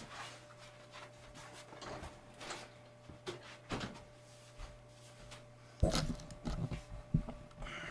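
Scattered knocks, clicks and rustles of a person moving about and handling the camera, with a cluster of louder thumps about six seconds in, over a steady low electrical hum.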